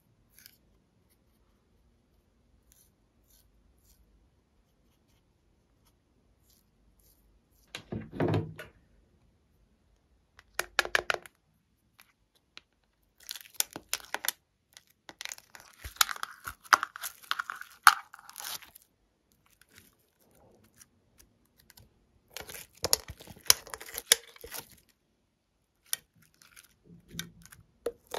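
Quiet at first, then from about eight seconds in several bursts of crackling, tearing sounds as filling material is pried and peeled out of the compartments of a molded tray.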